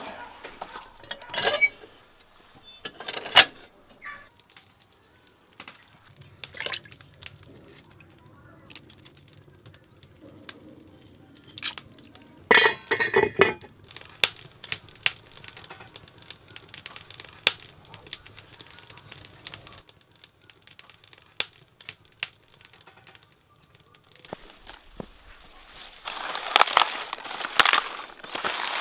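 Knocks and clinks of an iron pot and stove plates on a wood-fired brick stove, then firewood crackling and popping in the open firebox. Near the end, the crisp crunch and leaf rustle of a knife cutting a cabbage head from its stalk.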